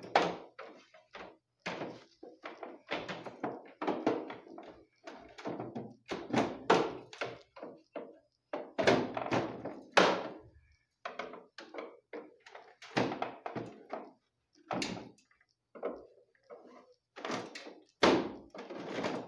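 Repeated thunks and knocks from the casing of a split-type air conditioner's indoor unit being handled and taken apart, coming irregularly.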